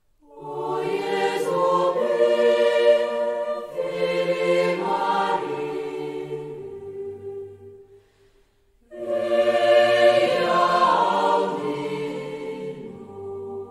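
Choir singing a slow sacred song in two long phrases, with a short break about eight seconds in.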